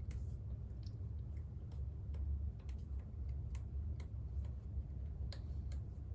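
Scattered light clicks and small taps at an irregular pace, over a steady low hum.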